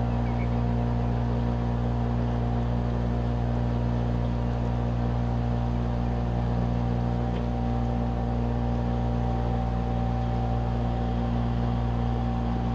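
Boat engine running at a steady cruising speed, a constant low drone with no change in pitch.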